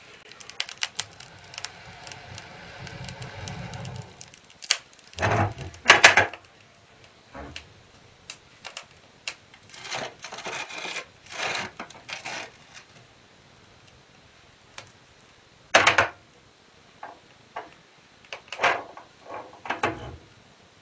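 Clanks, knocks and scrapes of metal on metal as the doors and ash drawer of an Ulabrand cast-iron wood stove are worked, with loud knocks about five, six and sixteen seconds in. For the first four seconds or so a low rumble with quick crackling clicks comes from the fire burning in the open firebox.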